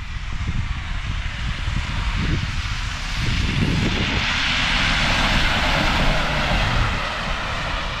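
A vehicle passes with a rushing noise that swells about three seconds in and fades near the end, over a low rumble.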